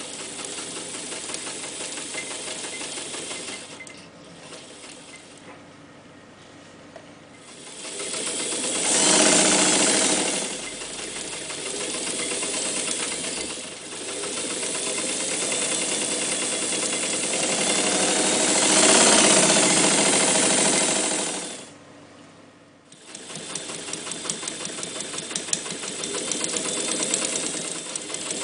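Jones 104 electric sewing machine running and stitching through folded fabric, its speed changing: it runs slower for a few seconds, speeds up to a fast loud run twice, stops briefly about three-quarters of the way through, then starts again.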